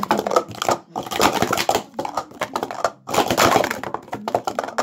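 Plastic sport-stacking cups (Speed Stacks) clattering in rapid, irregular clicks and slides as hands stack and unstack them at speed on a mat during a timed run.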